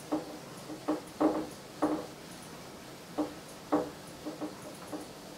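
Duster wiping across a whiteboard, giving a series of short, irregular squeaks.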